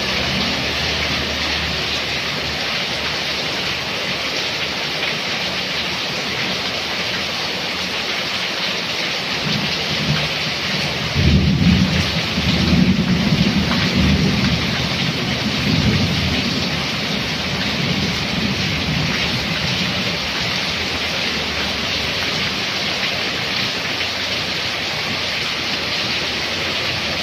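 Heavy rain pouring down steadily. About ten seconds in, a low rumble of thunder builds, peaks a couple of seconds later and dies away over the next few seconds.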